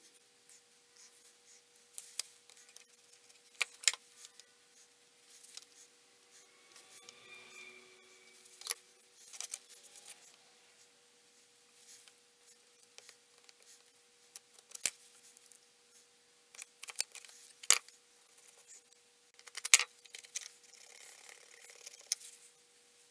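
Scattered sharp taps, clicks and light scrapes of a small blade on wood as excess epoxy putty is scraped off a repaired wooden drawer-frame piece, over a faint steady hum.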